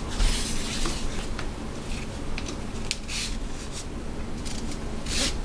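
Nylon sling webbing rasping as it is pulled through a tri-glide buckle and the rifle stock's sling slot in several short pulls, with light clicks of handling.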